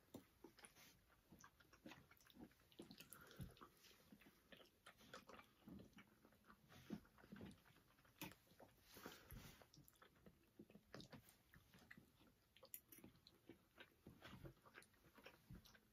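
Faint chewing and mouth sounds of people eating spaghetti, with scattered small clicks and scrapes of metal forks against plastic bowls.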